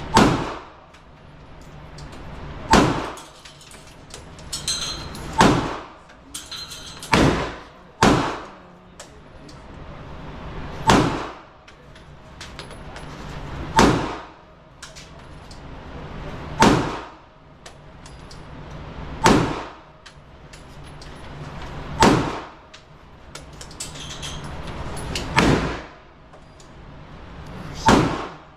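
Gunshots at a shooting range: about a dozen single shots fired at a slow, steady pace, one every two to three seconds, each a sharp crack with a short ringing tail.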